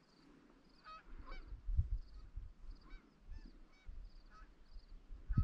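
A flock of geese honking at a distance, many short overlapping calls repeating. A couple of low thumps come through, one near the middle.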